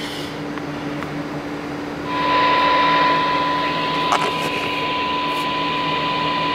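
Ranger RCI-2970N4 radio's speaker: a low steady hum, then about two seconds in, receiver hiss comes up together with one steady high tone that holds, typical of a signal-generator test tone at the start of a receive check.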